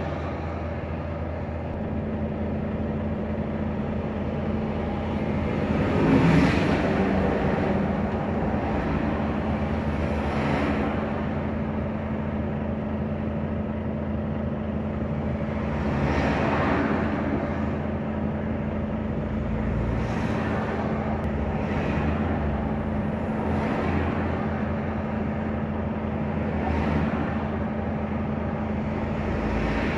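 A Volvo FH540 truck's diesel engine idles steadily at a standstill while vehicles pass close by in the opposite lane, about six of them. Each one comes in as a rise and fade of engine and tyre noise, the loudest about six seconds in.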